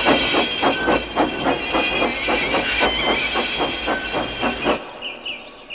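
Steam locomotive chuffing rapidly and evenly under hissing steam, working hard as it pushes. The chuffing cuts off suddenly near the end, leaving a few short high chirps.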